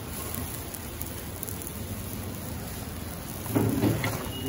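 Steady sizzling of food frying on a hot dosa griddle, with a brief louder low sound near the end.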